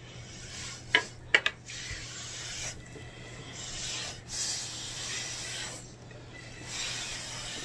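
Breath blown in several long puffs through a plastic drinking straw, heard as airy hissing, as runny watercolor paint is pushed across paper. A few sharp clicks come about a second in.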